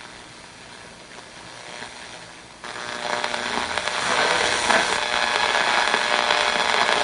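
Designed space 'sun' sound effect: a hissing, crackling noise that swells steadily and jumps louder about two and a half seconds in.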